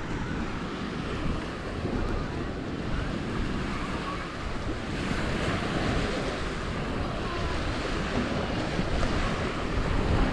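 Sea waves washing onto a beach, with wind buffeting the microphone in a low rumble. The wash grows louder about halfway through.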